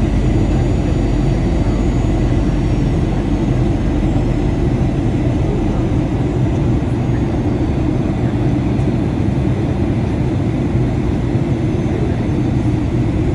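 Steady cabin noise inside a Boeing 737-800 airliner: a constant low rumble of its CFM56 engines and the airflow past the fuselage, with a faint steady high whine on top.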